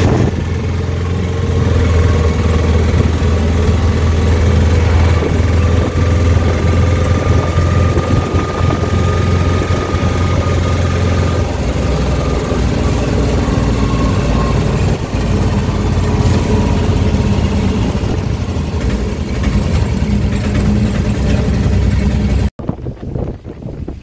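Auto-rickshaw (tuk-tuk) engine running, heard from inside the open passenger cab as a steady low drone over road noise; the engine note drops about halfway through. Near the end it cuts off abruptly to wind buffeting the microphone.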